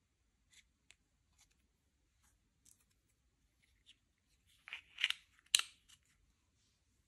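Slime being worked by hand: scattered small clicks and sticky pops, with a louder cluster of crackling pops about five seconds in.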